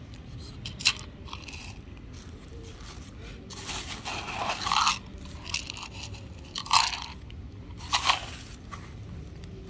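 Long-haired tabby cat crunching dry kibble, in irregular bursts of chewing.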